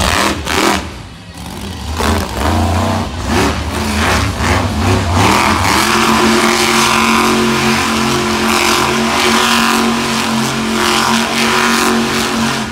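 Monster truck engine revving hard: surging and cutting in and out over the first few seconds, then held at a steady high pitch from about halfway through.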